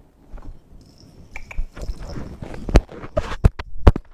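Pet parrot moving about on a hard, flat surface while fetching: a run of sharp taps and knocks from its feet and beak, a few of them loud in the second half, with a faint high whistle-like chirp about a second in.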